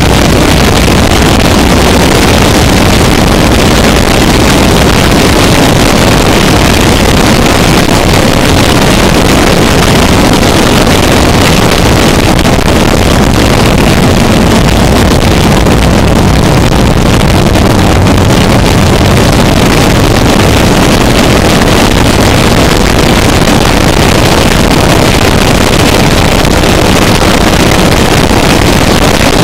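Harsh noise music: a dense, very loud wall of distorted noise that covers every pitch from deep rumble to hiss, unbroken and without beat or melody.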